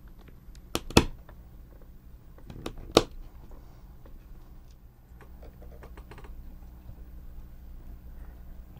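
Hobby knife cutting through a small plastic gear to trim it to length: two pairs of sharp clicks as the plastic snaps, about a second in and about three seconds in, then a few faint ticks.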